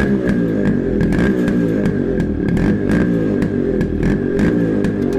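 Yamaha RX135's single-cylinder two-stroke engine running and being revved over and over, its pitch rising and falling.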